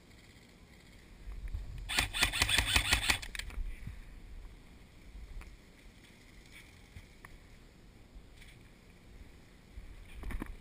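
A rapid burst of airsoft gun fire about two seconds in: a run of evenly spaced sharp cracks lasting about a second and a half, over a low rumble. Near the end, bumps and rustling as the camera wearer moves.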